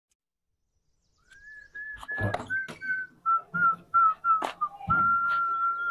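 A person whistling a tune, starting after about a second of silence: a run of short notes stepping down in pitch, then one long held note near the end. Several sharp knocks sound between the notes.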